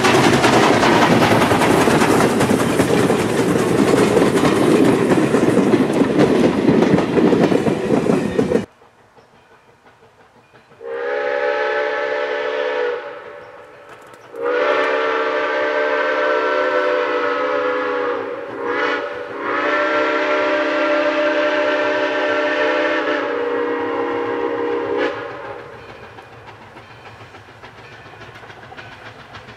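ALCO 2-8-0 steam locomotive 60 passing close by under power: loud exhaust and wheels clattering over the rails, cut off abruptly about nine seconds in. Then a steam whistle sounding a chord of several tones blows long, long, short, long, the grade-crossing signal.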